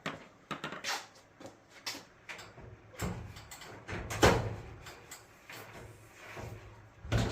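Samsung dryer drum being worked loose and slid out of the cabinet: a series of knocks, bumps and scrapes, the loudest knock about four seconds in.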